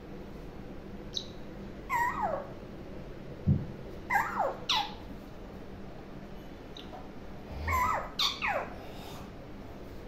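Alexandrine parakeet giving short, sharp calls that fall in pitch, about six in three clusters. A brief dull thump about three and a half seconds in.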